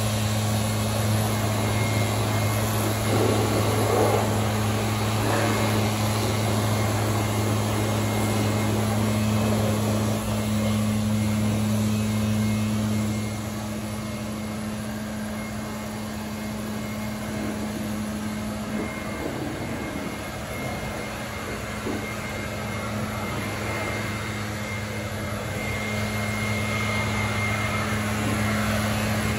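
An engine running steadily at a constant speed, a low even hum that gets somewhat quieter about halfway through.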